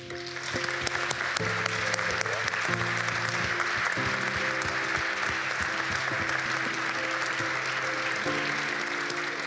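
A large audience applauding steadily, the clapping rising quickly at the start and easing a little near the end, over background music with sustained chords that change every second or so.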